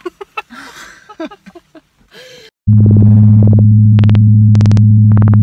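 Faint talk and laughter, then about two and a half seconds in a loud, low electronic drone cuts in suddenly: a steady buzzing tone with a string of short, bright synth stabs over it.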